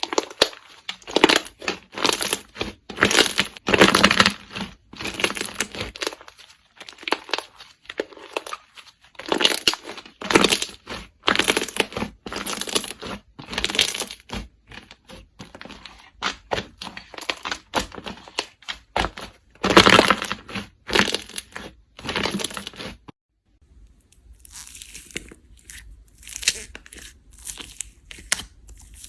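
Slime being squeezed, poked and stretched by hand, giving a dense run of irregular sharp crackles and pops. It breaks off briefly near the end and resumes quieter.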